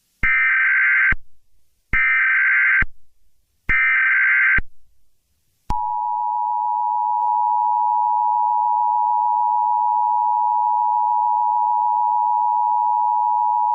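Emergency Alert System SAME header: three bursts of screeching digital data tones, each just under a second long, then about six seconds in the steady two-tone EAS attention signal begins.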